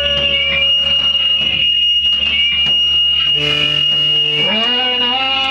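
Live noise music: a steady, piercing high-pitched tone held throughout, with layered pitched tones beneath it that hold, slide up and down, and change pitch.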